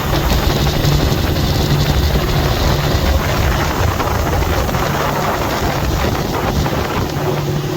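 Boat's outboard motor running steadily, with wind buffeting the microphone.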